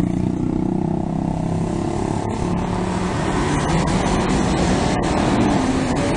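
Street traffic noise, with a motor vehicle engine running close by as a steady low hum.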